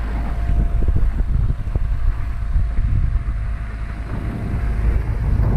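Wind buffeting the microphone of a camera aboard a small sailing dinghy under way, a steady low rumble, with water washing along the hull.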